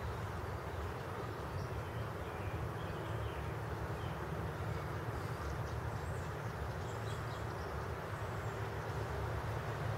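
Steady outdoor background noise with a low rumble and a few faint, scattered high chirps; the wading heron itself makes no clear sound.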